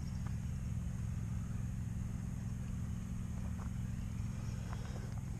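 A motor vehicle engine running steadily, a low even hum with no change in speed.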